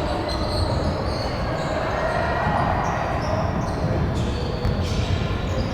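Basketball game in an echoing gym: a ball bouncing on the court amid short high squeaks and a steady background of crowd noise.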